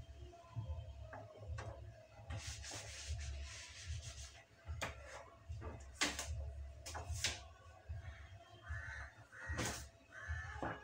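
A cloth rubbing dishes dry, with several sharp clinks and knocks as dishes are handled and set down in a dish rack in the second half.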